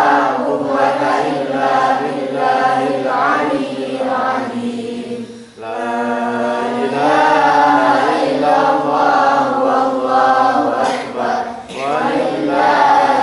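A boy's voice chanting Qur'an recitation into a microphone in a melodic style, with long held notes that waver and glide in pitch. He breaks off briefly for breath about five and a half seconds in, then takes up the melody again.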